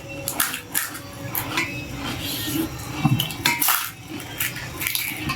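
Spoons clinking and scraping against plates and bowls while eating chaat and panipuri: a string of short, irregular clicks and clinks.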